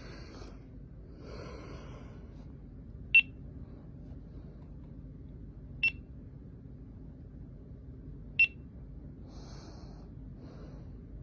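Three short, high beeps a couple of seconds apart from a GoPro Hero 13 Black action camera, with faint rustling between them.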